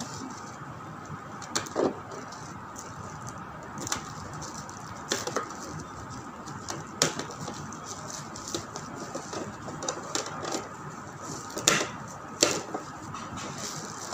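Plastic bubble-wrap packaging crinkling and rustling as it is cut and pulled open, with scattered sharp crackles and snaps.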